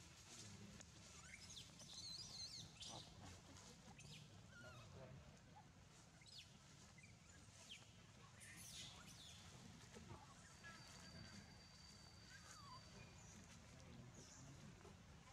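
Quiet outdoor background with faint, scattered high chirps and short gliding squeaky calls from birds or small animals. A thin steady high tone holds for about two seconds around ten seconds in.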